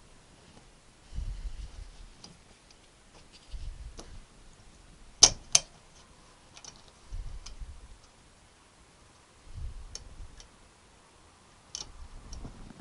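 Circlip pliers and a steel circlip clicking against the bore of a clutch master cylinder held in a bench vice while the circlip is worked into place. There are scattered light metallic clicks, two sharp loud clicks about half a second apart around five seconds in, and soft low bumps every couple of seconds.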